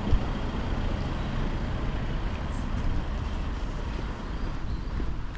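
Steady low rumble of a car being driven, with road noise, and a single thump just after the start.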